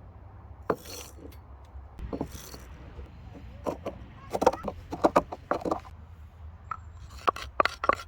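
Irregular knocks, clinks and scrapes of things being handled, several in quick succession about four to six seconds in and again near the end, over a low steady rumble.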